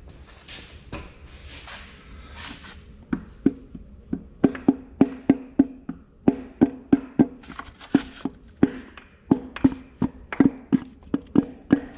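Light handling noise for about three seconds, then a quick, uneven series of sharp metallic clicks, each with a short ringing note, about two to three a second. The clicks come from work on a connecting-rod bearing cap on the crankshaft of an Oliver 1855 engine under rebuild.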